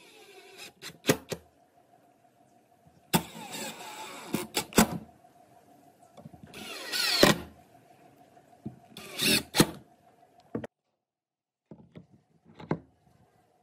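Power drill driving screws through a steel disc into a pine board: four short runs of the motor, each rising in pitch and ending in sharp clicks. A light wooden knock near the end.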